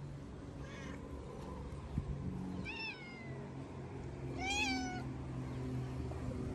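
Hungry stray cat meowing three times: a faint short meow, then two louder meows that rise and fall in pitch.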